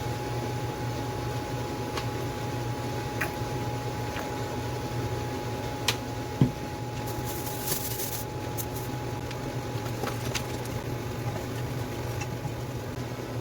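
Steady hum of a kitchen fan, with a few light clicks of utensils and one louder knock about six and a half seconds in.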